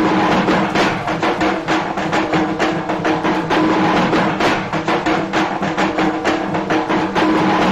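Loud drumming in a fast, steady rhythm of many strokes a second, played for dancing.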